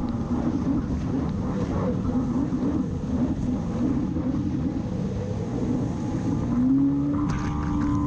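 Yamaha SuperJet stand-up jet ski running at speed, its engine note wavering, over the rush of water spray off the hull. About seven seconds in, the engine rises in pitch and holds there.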